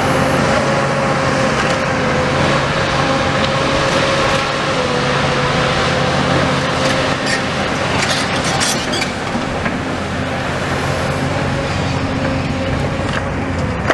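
A steady engine hum with a constant, slightly wavering whine. A few sharp clicks or knocks come about seven to nine seconds in.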